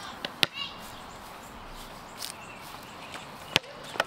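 A basketball bouncing on pavement, a few sharp knocks near the start and again near the end, over steady outdoor background noise.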